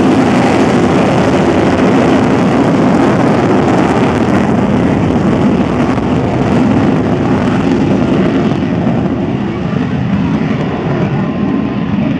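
F/A-18 Hornet's twin General Electric F404 jet engines at full power with afterburners lit on the takeoff run: a loud, steady jet roar that fades slightly in the last few seconds as the jet pulls away.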